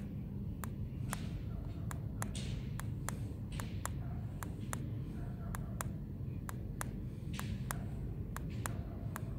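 Buttons on an SW900 e-bike display's control pad clicking as the settings menu is stepped through, a sharp click about twice a second over a steady low hum.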